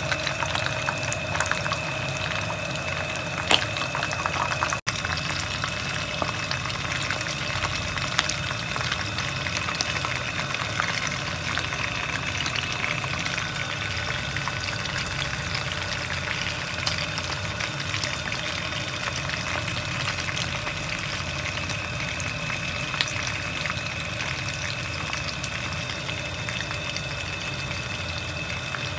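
Whole chicken frying in hot oil in a wok: steady sizzling and bubbling with scattered small pops, over a faint steady whine. The sound cuts out for an instant about five seconds in.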